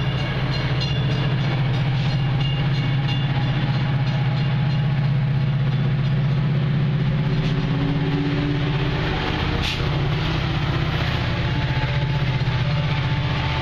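Metra commuter train pulling out of the station: a steady loud diesel drone from the locomotive, with rapid wheel clicks over the rail joints in the first few seconds and a sharp click about ten seconds in.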